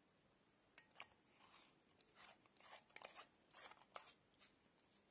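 Faint scraping and clicking of an LED bulb's metal screw base being twisted into a lamp socket, in a run of short turns from about a second in until near the end.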